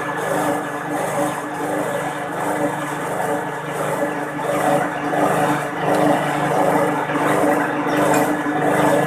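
Metal lathe running steadily, its tool bit turning down the head of a stainless steel bolt held in the chuck.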